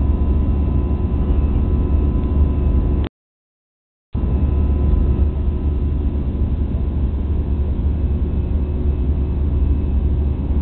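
Airliner cabin noise in flight: the steady low rumble of an Airbus A320's jet engines and airflow, with a faint steady high tone above it. About three seconds in the sound cuts out completely for about a second, then resumes unchanged.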